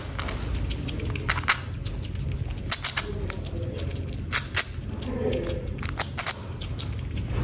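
A squirrel nibbling a crisp cracker: short sharp crunching clicks in small clusters, over a steady low hum.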